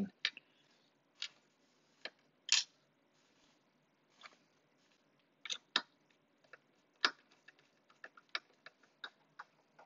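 Light, sharp clicks of small screws and hard plastic parts being handled, scattered a second or so apart. From about seven and a half seconds in, a run of fainter ticks, about three a second, as a small Phillips screwdriver turns a screw into the plastic arm housing of an Omnibot 5402 robot.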